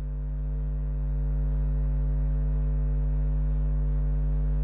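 Steady electrical mains hum, a low buzz with evenly spaced overtones, growing slightly louder over the first second or so.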